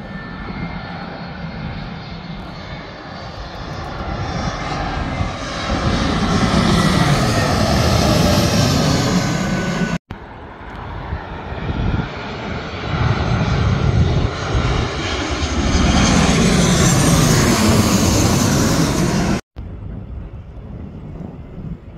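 Jet airliners passing low overhead on landing approach. The engine noise swells to a loud peak with a whine sweeping in pitch as each one goes over. The sound cuts off abruptly at about ten seconds and again near the end.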